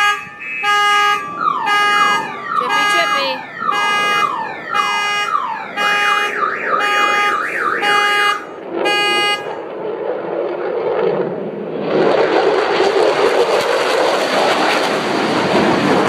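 Several car alarms, set off by the low pass of F/A-18 Hornet jets, sound together: repeated high beeps and rising-and-falling whoops that cut out about nine seconds in. A loud, steady jet-engine roar then swells in from about ten seconds.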